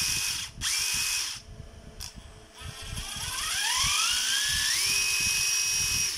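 Hitachi 14DBAL2 14.4 V brushless cordless impact driver spinning free with no load: two short trigger pulls, each spinning up and stopping, then after a short pause one long pull in which the motor speed climbs in steps as the trigger is squeezed and holds at full speed until it is released near the end.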